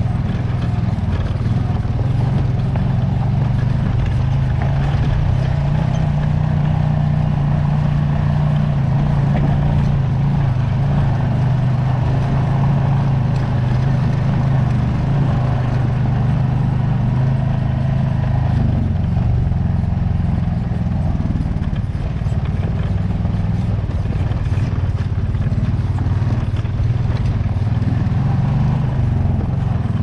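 Honda Foreman ATV's single-cylinder four-stroke engine running at a steady low speed as the quad crawls over a rocky trail, its note holding fairly even with small dips.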